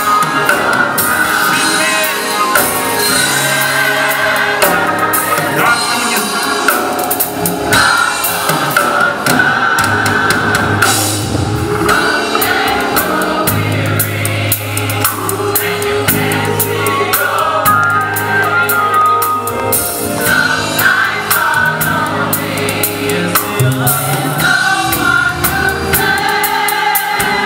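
Gospel choir singing with a woman soloist on a microphone, backed by a drum kit and sustained bass notes.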